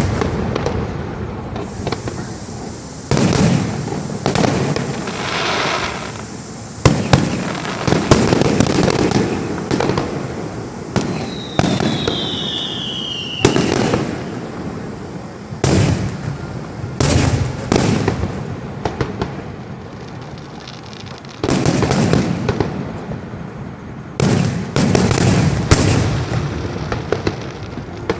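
Aerial fireworks display: a steady run of shell bursts, each bang followed by a rolling echo, with clusters of rapid bangs. About halfway through, a falling whistle cuts across the bursts.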